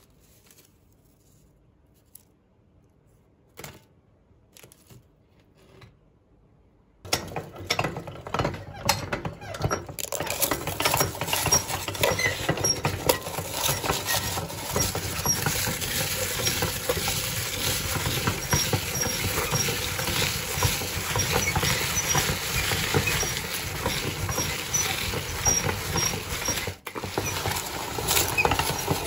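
Puffed rice cakes crunching and crackling as they are crushed in a hand-cranked metal meat grinder, a dense, continuous crackle. It starts after several quiet seconds that hold only a few faint clicks.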